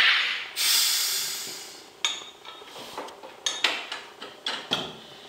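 SodaStream drink maker carbonating a bottle of water: a loud hiss of gas that stops about half a second in, then a second hiss that fades away over about a second and a half. After that come several plastic clicks and knocks as the bottle is twisted free of the machine.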